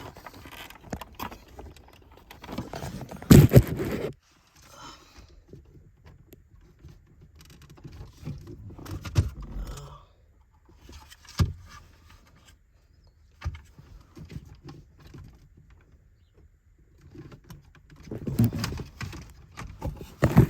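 Plastic dashboard trim being pulled and pried loose by hand: irregular clicks, knocks, rattling and scraping, with the loudest knock about three and a half seconds in and another cluster of knocks near the end.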